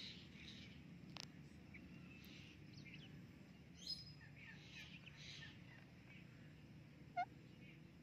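Faint bird chirps and twitters over a low steady background hum, with two brief louder squeaks about four and seven seconds in.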